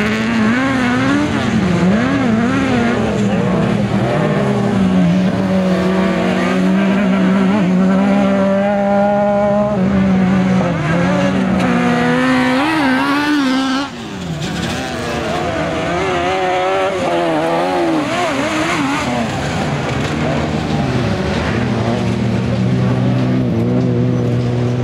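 Autocross racing buggies' engines running hard around a dirt track, the revs swinging up and down repeatedly through gear changes and corners, with more than one car heard at once.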